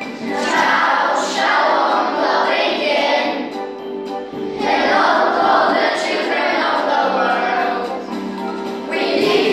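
A group of about twenty children singing a song together as a choir, in phrases with short dips between them.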